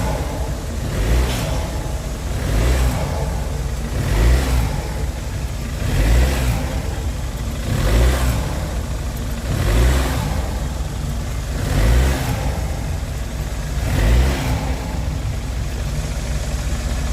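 BMW engine revved in short bursts about every two seconds, about nine times, against the brakes in a brake test. The test is meant to show up the right and left engine mounts, which are having issues.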